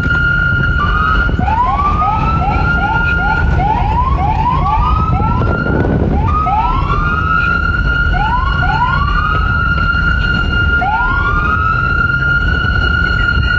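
Police car siren: a steady high wail held at one pitch, broken by repeated upward swoops. The swoops come as a quick run of chirps a few seconds in, then as slower single swoops, over a heavy low rumble.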